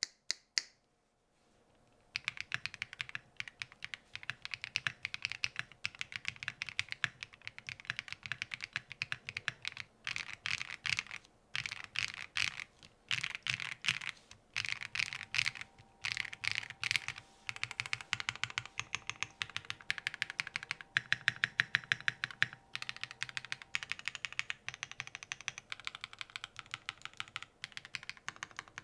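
Typing on a custom JOJO Studio M98 R2 mechanical keyboard with FOD Lucky linear switches and DPS WDA keycaps, built on a flex-cut FR4 plate with bottom foam only. After a couple of lone clicks at the start, a fast run of keystrokes begins about two seconds in, with brief pauses.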